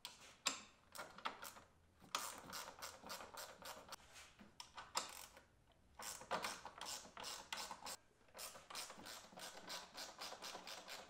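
Socket ratchet clicking as the 10 mm bolts on a radiator fan shroud are backed out, in several quick runs of clicks with short pauses between.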